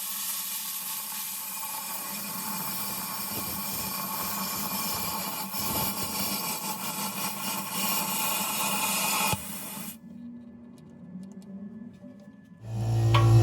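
Steady hissing of a plasma cutter working, which cuts off abruptly about nine seconds in. Music starts near the end.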